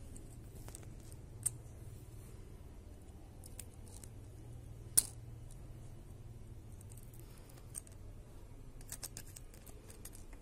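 Small sharp clicks of a thin metal screwdriver tip prying at the circuit board and plastic frame of a disassembled Samsung Galaxy S II phone. A few scattered clicks, the loudest about five seconds in and a quick cluster near the end, over a faint low hum.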